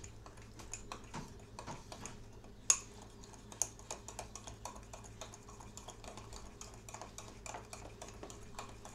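Spoon stirring chocolate cake batter, clicking against the side of the container a few times a second, with one louder knock about three seconds in.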